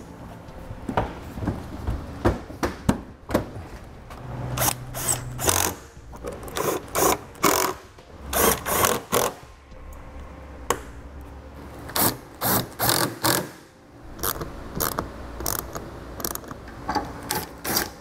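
Repeated short bursts of a cordless power driver running in screws, mixed with sharp clicks and snaps of plastic push clips and wiring connectors being pressed into place as a car's rear bumper cover is refitted.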